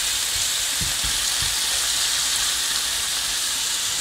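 Pieces of chicken frying in a hot pan: a steady sizzling hiss, with a few soft knocks in the first second and a half as pieces go into the pan.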